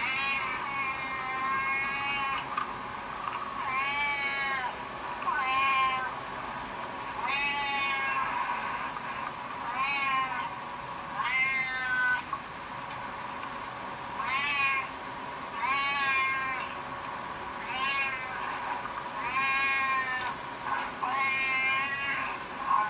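Siamese cat meowing over and over: about a dozen long, drawn-out meows, one every one to two seconds, each rising and then falling in pitch.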